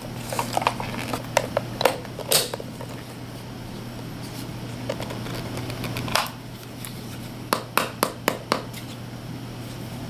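A small clear plastic hard case being handled and turned over: scattered sharp plastic clicks and knocks, with a quick run of about five clicks a little past the middle as its snap latches are worked.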